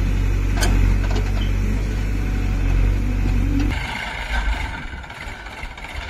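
JCB 3DX backhoe loader's diesel engine running close by, with a sharp knock about half a second in. A little past halfway the sound changes abruptly to quieter, more distant engines running.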